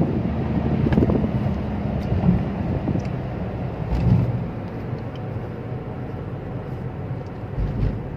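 Car cabin noise while driving: a steady low rumble of engine and tyres on the road, with a couple of low bumps about four seconds in and near the end.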